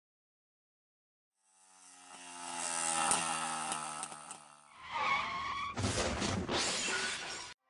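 Cartoon sound effect of a moped engine coming closer and getting louder, then a tyre screech and a harsh skidding scrape that cuts off suddenly near the end.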